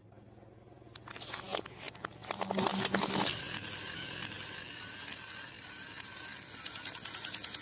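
Plastic crackling and crunching under a car tyre for the first few seconds. After that a battery-powered crawling toy soldier runs with a steady electronic tone, breaking into a fast rattle of machine-gun sound effects, about eight beats a second, near the end.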